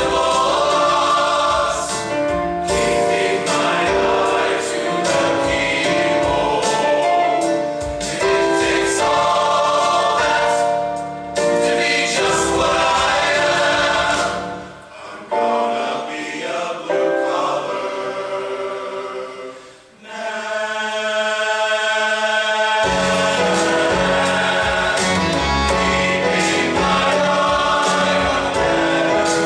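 Men's choir singing in parts, with two brief breaks. After the second break the upper voices come in alone, and the low voices join a few seconds later.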